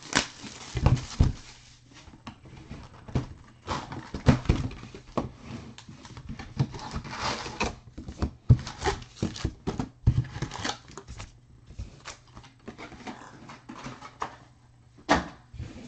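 Foil-wrapped Topps Heritage baseball card packs being pulled from an opened cardboard hobby box and set down in stacks on a table: irregular taps and knocks with bouts of wrapper rustling.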